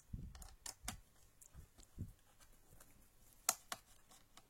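Scattered light knocks and sharp plastic clicks from a laptop being handled and set down on a work surface. A few dull thuds come early on, and the loudest sharp click falls about three and a half seconds in.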